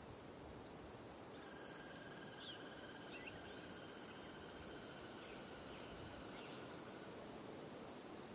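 Faint outdoor nature ambience: a steady insect trill that starts about a second and a half in, with a few short bird chirps, over a low steady hiss.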